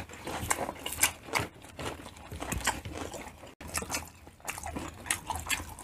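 Close-miked chewing of grilled pork intestine skewers, with wet mouth smacks and irregular sharp clicks and crunches.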